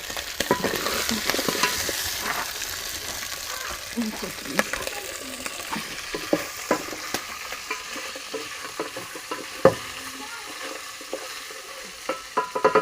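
Francolin meat frying in oil in a pot, sizzling steadily as it is cooked down dry, with a utensil stirring and knocking against the pot, several knocks close together near the end.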